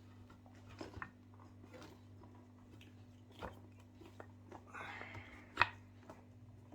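Rubber scooter tyre being worked onto the wheel rim by hand: scattered clicks, knocks and rubbing, with a short scraping stretch about five seconds in ending in a sharp click.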